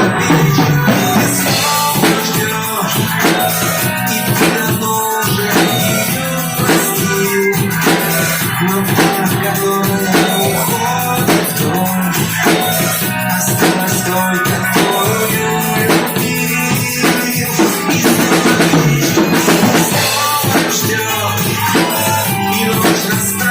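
Instrumental passage of a pop song, a drum kit keeping a steady beat under the backing instruments.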